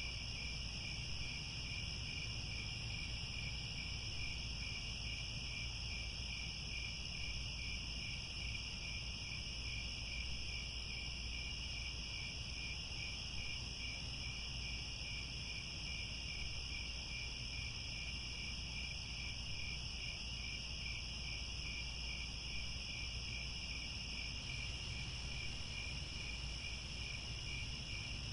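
Crickets chirping in a steady chorus: several overlapping high trills, one with a fast even pulse, over a low steady rumble.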